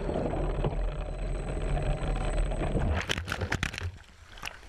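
Rushing, churning water heard from a drone camera dunked in a rocky stream or waterfall: a dense low rumble, then a run of sharp knocks from about three seconds in as it tumbles. The sound gets quieter near the end.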